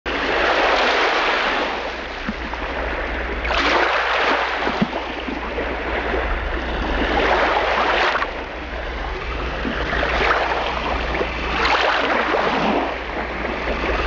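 Ocean surf: waves rushing in and washing back, swelling and fading about five times, over a steady low rumble.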